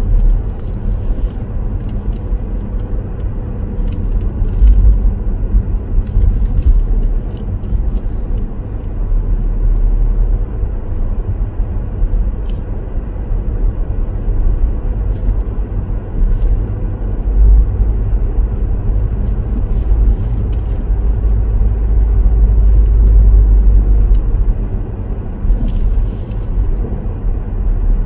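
A car driving, with a steady low rumble of road and engine noise that swells louder now and then, and a few faint ticks.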